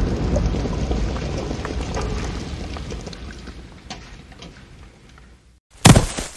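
Tail of a cartoon explosion sound effect: rumbling, crackling noise fading away over about five seconds. Near the end comes one short, loud burst of noise that cuts off.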